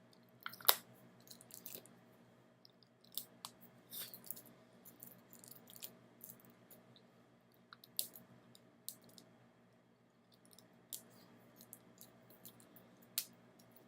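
Plastic shrink-wrap on a Blu-ray box set being picked at and torn open by hand: scattered crinkles and sharp clicks, the loudest less than a second in. A faint steady hum runs underneath.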